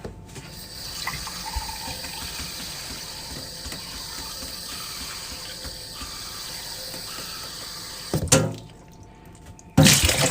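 Steady rush of running water, like a tap filling a sink, with faint steady high tones above it; two short, louder sounds break in near the end.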